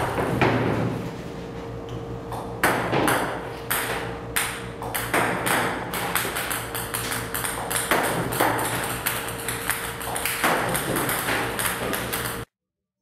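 Ping-pong balls clicking as they bounce on a table tennis table, a sharp tick every half second to a second, over the steady hum of a ball-throwing table tennis robot. It all cuts off suddenly near the end.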